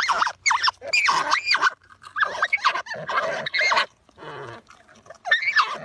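Marmots squealing in a run of short, wavering bursts as they scuffle with each other.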